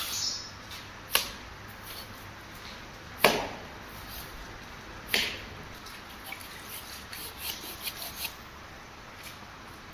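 Steel hand trowel working wet cement mortar: three sharp knocks about two seconds apart, then a run of lighter ticks and scrapes.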